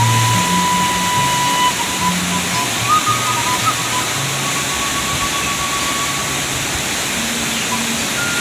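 Steady roar of a waterfall, with background music of low stepping bass notes and a thin high melody line over it.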